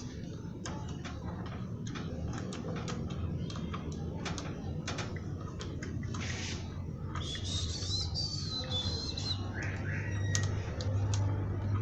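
Scattered sharp clicks and taps over a low steady hum, with a short high warbling chirp about seven and a half seconds in.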